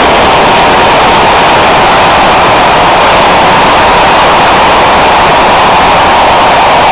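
Freight train of covered wagons rolling past at speed: a loud, steady rush of wheels on the rails with no break.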